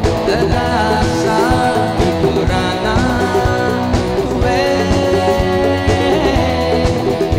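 A Hindi-Urdu song playing loud: a singer over guitar and other instruments.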